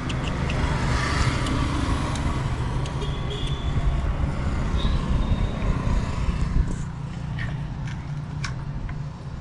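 Motor vehicle engine running with a steady low rumble, which eases off about six and a half seconds in.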